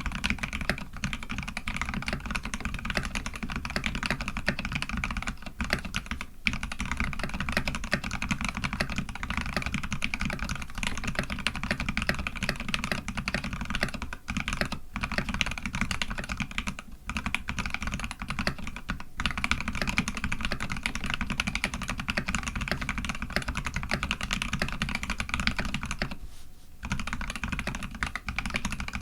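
Eo87 custom mechanical keyboard being typed on fast and continuously, its Polaris Gray switches lubed with Krytox 105 and filmed, mounted on a brass plate under Dev/tty keycaps, with a few brief pauses, the longest a little before the end.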